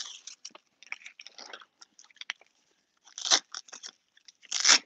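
Velcro straps on a JAS Knee brace being handled and pulled, with small crackles throughout and two louder ripping tears a little over a second apart near the end.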